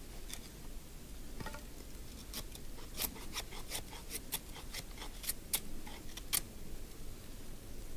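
Knife working a piece of dry split firewood: a string of short, sharp scrapes and cracks at an irregular pace, starting about a second and a half in and stopping after about six seconds.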